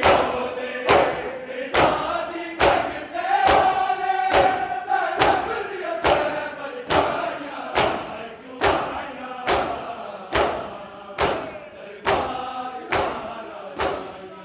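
Mourners chanting a noha together, with a sharp, even beat of chest-beating (matam) a little more than once a second keeping time with the chant.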